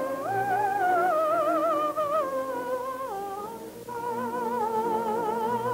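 Music: a woman's high voice singing a slow melody without distinct words, with strong vibrato, over soft accompaniment.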